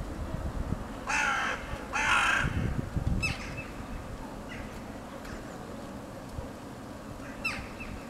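Crows cawing: two loud, harsh caws about one and two seconds in, followed by a few short, sharp calls from the feeding flock.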